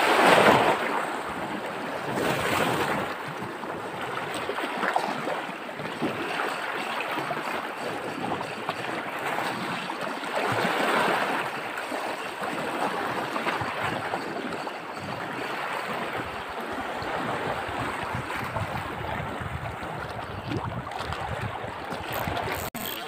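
Sea waves washing over a shallow coral reef and rocks, surging louder every few seconds, with wind buffeting the microphone.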